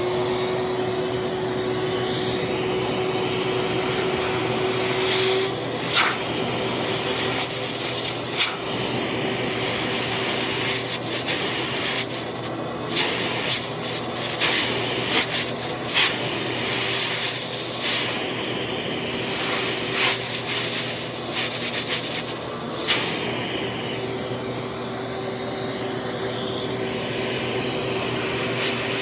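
A vacuum cleaner's motor running steadily, its suction used to pull a dented, water-soaked paper tweeter dome back out. From about six seconds in, the suction note wavers and gives brief hissing surges every second or two.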